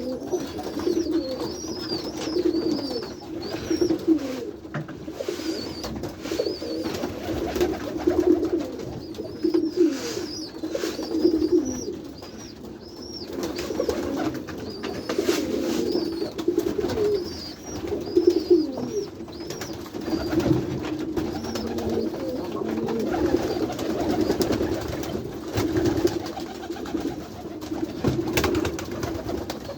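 Many white pigeons cooing together in the loft, with overlapping throaty coos pulsing throughout. Higher chirps and scattered clicks come through over the cooing.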